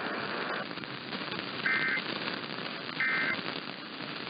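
Emergency Alert System end-of-message data bursts over the air: short two-tone digital warbles, each about a third of a second, repeating about every 1.3 s, marking the end of the relayed alert. Steady radio static hiss runs underneath.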